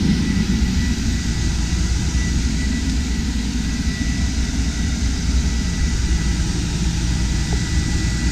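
6,000 BTU Mabru self-contained marine air conditioner running and cooling: a steady blower air rush with a low hum underneath and a thin, steady high whine.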